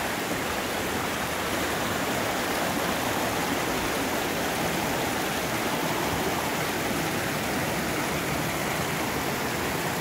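Small mountain brook rushing steadily over rocks and little cascades.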